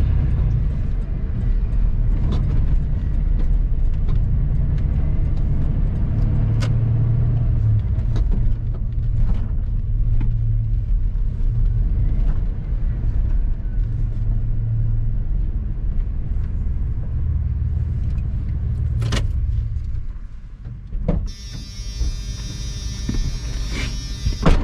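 Pickup truck engine and road noise heard from inside the cab while driving, a steady low rumble that falls away about twenty seconds in as the truck comes to a stop. Near the end a bright warning chime rings with the driver's door open.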